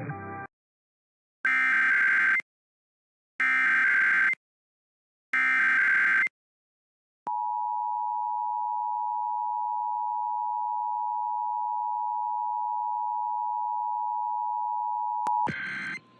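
Emergency Alert System test tones: three one-second bursts of the SAME digital header, then about eight seconds of the steady two-tone attention signal. The attention signal ends with a click and a brief burst near the end.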